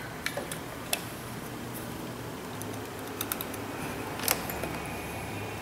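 Scattered light clicks and taps of a test light's probe and clip leads being handled against a power-window switch and its wiring, over a steady low hum.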